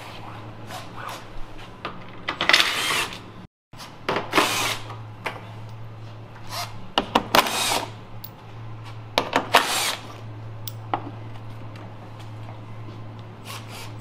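Power tool run in short bursts, about four of them, with clicks between, as fasteners are undone under a car on a lift. A steady low hum lies underneath throughout.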